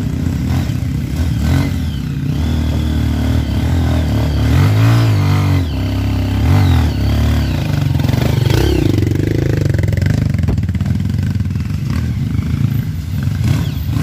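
Off-road trail motorcycle engines running, revving up and down several times, the pitch rising and falling.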